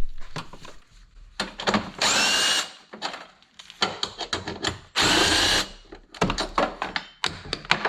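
Power drill run in two short bursts of about half a second each, spinning up in the first, backing out 10 mm bolts, with clicks and clinks of tools and metal parts between the bursts.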